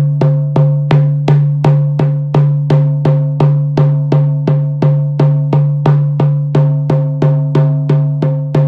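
14-inch goatskin hand drum beaten steadily with a thin leather-headed beater, about three even strokes a second. Each stroke rings on with a low, steady hum that carries over into the next.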